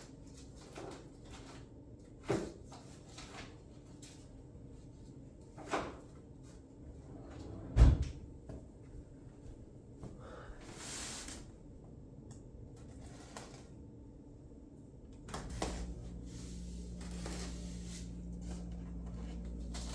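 Cardboard box and packaging being handled during an unboxing: a few separate knocks and thumps, the loudest about 8 seconds in, and a short sliding rustle near 11 seconds. From about 15 seconds a steady low hum sets in and continues.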